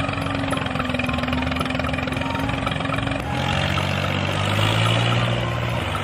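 Small engine of a homemade miniature construction machine running steadily; its note drops to a lower pitch about three seconds in.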